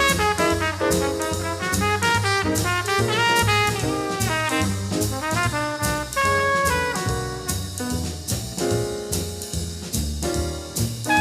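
Small-group jazz: a horn plays a quick, busy line over walking bass and a drum kit with ride cymbal.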